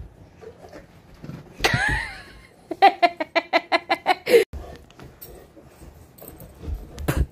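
Puppies play-wrestling: a high, bending squeal about one and a half seconds in, then a person laughing in a quick run of about ten ha's. A couple of thuds follow near the middle and the end.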